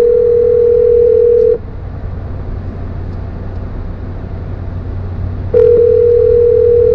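Telephone ringback tone of an outgoing call ringing out: a steady tone of about two seconds that stops about a second and a half in, then a second ring about four seconds later. A steady low hum runs underneath.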